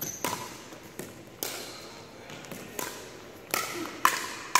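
Pickleball rally: paddles striking the plastic ball, and the ball bouncing on the hardwood court, make a string of about seven sharp pops, each with a short ring. The last two, near the end, are the loudest.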